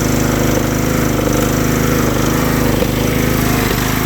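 Craftsman riding lawnmower engine running steadily just after catching on a cold start, with a few light clicks over the even engine note.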